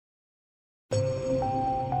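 Silence, then trailer background music starts abruptly about a second in: a melody of sustained single notes, changing about twice a second, over a low bass.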